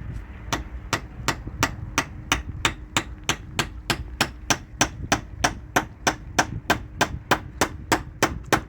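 A hammer striking in a fast, even series, about three blows a second, of the kind made when driving nails during building work.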